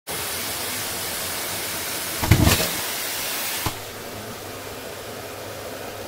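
Miele vacuum cleaner running with a steady hiss, with a brief loud gulp about two seconds in as trash and latex gloves are sucked up the hose. A sharp click follows about a second later, after which the running sound is quieter.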